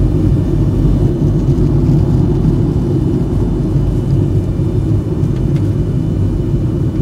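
Jet airliner cabin noise in flight: a steady low rumble of engines and airflow.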